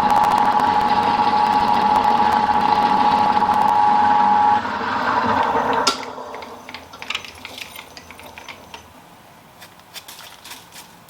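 Milling machine cutting metal with a steady high ringing tone. The cut ends about four and a half seconds in, and the machine stops sharply about six seconds in, followed by faint scattered clicks.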